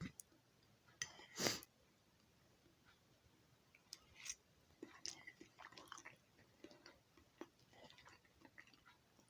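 Quiet, scattered small clicks and knocks, with one louder knock about a second and a half in.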